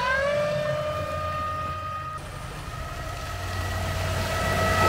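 Whine of a DIY 48-volt, 10 kW electric outboard motor driving the boat: its pitch rises at the very start as it speeds up, then holds steady. Water rushes along the hull and wake, getting louder near the end.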